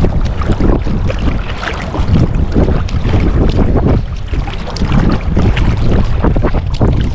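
Small sea waves sloshing and splashing against a float tube, with wind buffeting the microphone in a constant low rumble.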